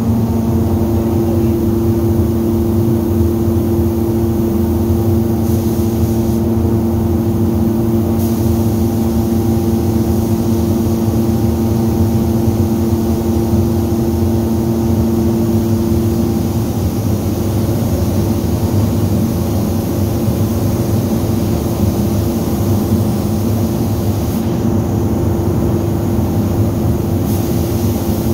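Spray gun hissing as it sprays finish onto a wooden cabinet, over a loud, steady mechanical hum that shifts in pitch about two-thirds of the way through. The hiss drops back twice, briefly, as the trigger is let off.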